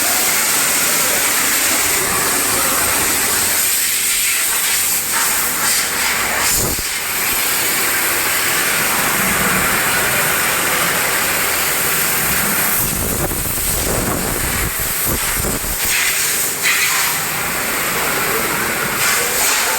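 A high-pressure spray hissing loudly and steadily, easing off briefly a few times partway through.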